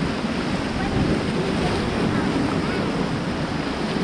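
Steady rush of churning river water through rapids, with wind buffeting the microphone.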